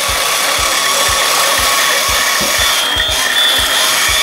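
Small electric motor of a battery-powered toy whirring steadily, with a thin high whine joining about two and a half seconds in, over background music with a steady beat.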